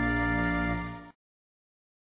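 Soft background music holding a sustained chord, which fades and ends about a second in.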